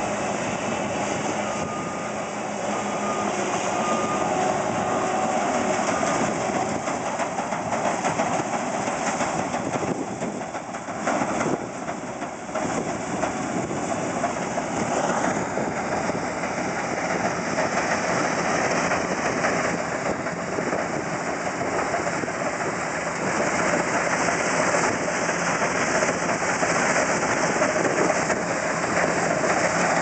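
New Holland CS6050 combine harvester running while it cuts rice: a steady mechanical din of engine and threshing machinery. It grows a little louder as the machine drives its header up close.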